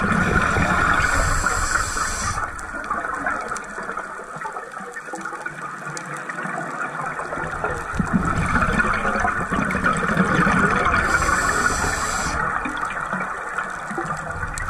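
Scuba breathing heard underwater: the rushing gurgle of exhaled regulator bubbles, coming in two long surges about eight seconds apart, each with a short hiss high up.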